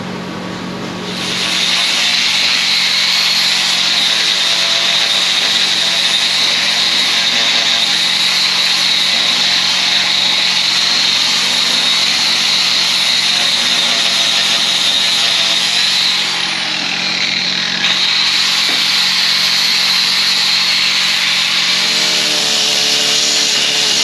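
Hand-held grinder working steel, smoothing the face of a trailer kingpin: a steady high grinding whine starts about a second in, eases briefly about two-thirds of the way through, then picks up again until it stops.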